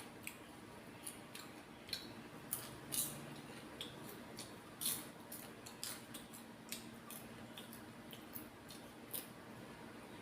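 Someone eating microwave popcorn: irregular short, crisp crunches and clicks, about one or two a second.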